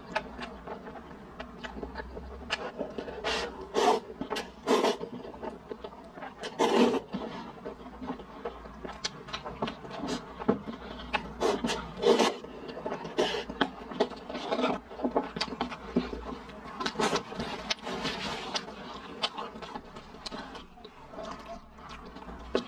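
Instant cup noodles being slurped and chewed close to a clip-on microphone: a run of irregular wet slurps and mouth noises, the loudest about 4, 7 and 12 seconds in.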